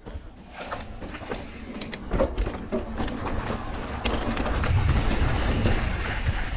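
Mountain bike riding down a dirt singletrack: tyres rolling over dirt and roots, with the bike rattling and clattering over the bumps in many sharp clicks. It grows louder about four seconds in.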